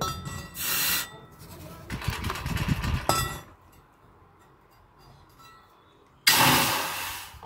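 A hot steel hoe blade is dipped into a water trough to quench-harden it, and the water sizzles and hisses in bursts. The loudest burst starts suddenly near the end and fades over about a second.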